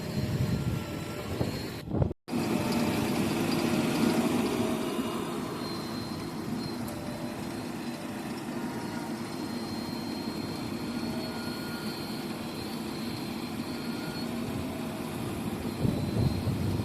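Diesel engine of heavy farm or earthmoving machinery running steadily. The sound drops out for a split second about two seconds in.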